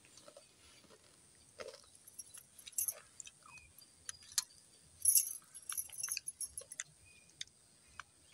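Glass and metal bangles clinking in short, light tinkles as a hand works and eats rice from a steel plate, with a louder flurry of jingles about five seconds in.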